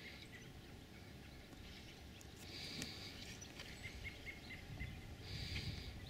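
Faint outdoor ambience of birds calling: a short buzzy call comes back about every two and a half seconds, with a quick run of chirps in the middle. A low rumble of wind or handling noise lies underneath.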